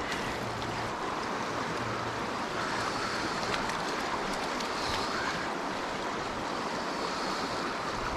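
Fast, snowmelt-swollen trout stream rushing steadily past, a continuous even wash of moving water.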